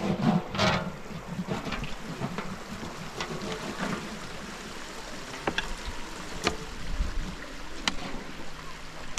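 Hands rubbing and scrubbing across a large round perforated metal sieve, a steady rasping hiss, with a few sharp clicks in the second half.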